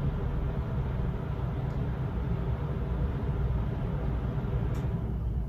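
Room air conditioner running: a steady low hum and hiss with faint tones in it, broken by two faint ticks.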